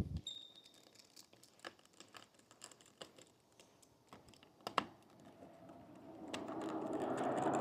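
Faint, scattered small clicks and ticks of an Allen wrench turning out the screws that hold the spray atomizer on a spray drone's arm, with one sharper click a little before five seconds in. A steady rushing noise rises in over the last second or two.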